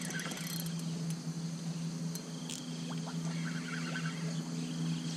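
Outdoor river ambience: a steady low hum, with a few short high bird chirps about three seconds in and a brief sharp click a little before them.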